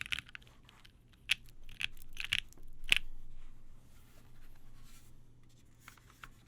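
Mechanical keyboard with lubed Gateron Ink switches and GMK keycaps (Hephaestus Works Nasu): a run of fast typing stops just after the start, then four separate key presses follow over the next couple of seconds. A few faint clicks come near the end.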